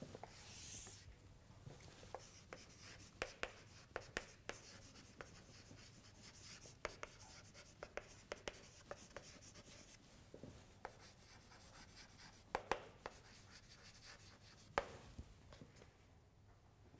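Chalk tapping and scratching on a blackboard as a line of handwriting is written: a faint, irregular run of short ticks.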